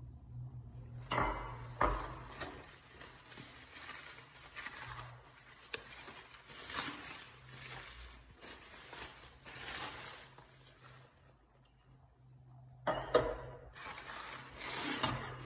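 Bubble wrap crinkling and rustling as ceramic bowls and plates are unwrapped, with sharp clinks of the dishes knocking together and being set down on the counter. The rustling stops briefly near the end, then resumes with a loud clink.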